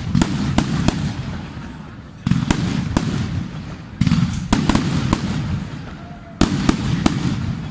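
Fireworks display: salvos of sharp bangs, several in quick succession every couple of seconds, each salvo trailing off in a low rumbling echo.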